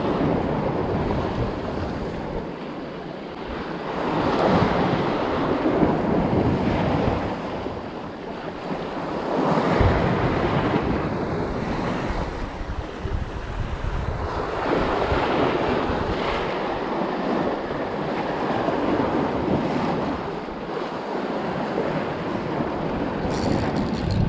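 Sea waves surging and washing over the rocks, swelling and easing every few seconds, with wind buffeting the microphone.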